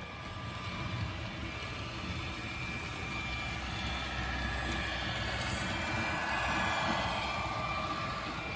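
A Bachmann Class 66 model locomotive's DCC sound decoder playing a diesel engine's running sound through its small speaker as the model runs past, with the rumble of its wheels on the track. It grows louder about seven seconds in as it draws near.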